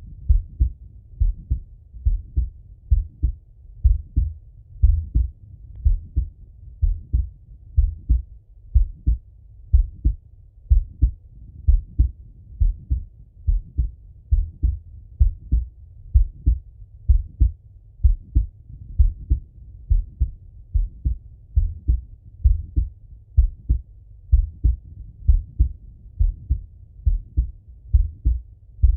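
A man's heartbeat heard through a Littmann stethoscope: a steady, even rhythm of muffled, low-pitched thuds, the lub-dub of the heart.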